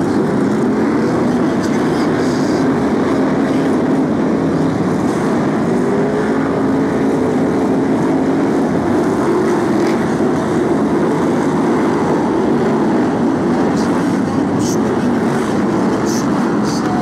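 A pack of BriSCA F1 stock cars racing together, their V8 engines making a loud, continuous din. The pitch rises and falls as the cars accelerate out of the bends and lift off into them.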